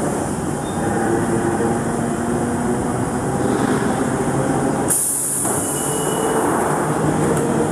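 London Underground train running into the platform with a steady rumble and squealing wheels. A sudden loud hiss cuts in about five seconds in.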